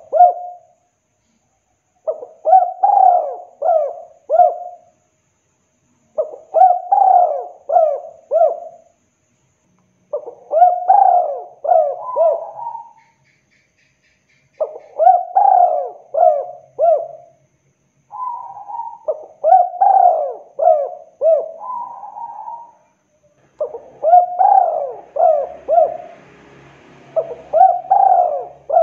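Spotted dove cooing: about seven phrases of three or four coos each, one phrase every few seconds, the phrases running closer together near the end.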